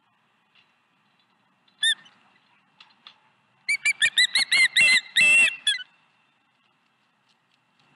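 Osprey calling: one sharp whistled chirp about two seconds in, then a rapid run of about ten loud whistled chirps, each rising and falling in pitch, over about two seconds.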